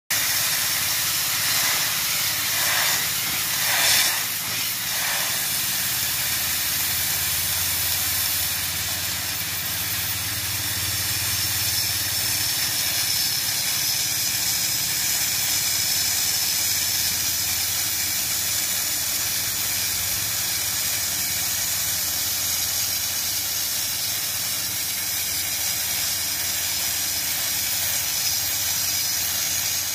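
Sandblasting nozzle firing abrasive grit against a steel ship hull: a loud, steady hiss, with a few brief surges in the first five seconds.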